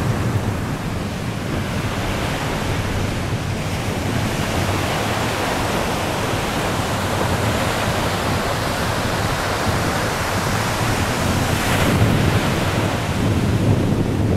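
Small surf breaking and washing along a sandy shore, mixed with wind buffeting the microphone: a steady rushing noise.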